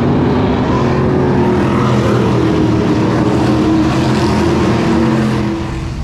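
Engines of a field of street stock race cars running around a dirt track, several engines at once rising and falling in pitch as the cars pass. The sound drops off about five and a half seconds in.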